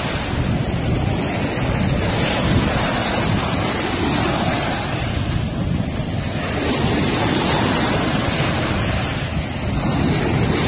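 Ocean surf washing up on a sandy beach, the hiss of the waves swelling and fading every few seconds, over a low rumble of wind buffeting the microphone.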